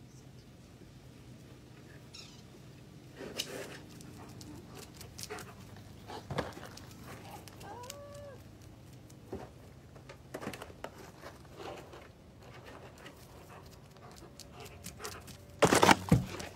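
Light scattered clicks and knocks, with a few short high calls about eight seconds in. Near the end, a loud noisy burst lasting about half a second as a German shepherd snatches a cardboard lasagna box off a plastic pallet right beside the microphone.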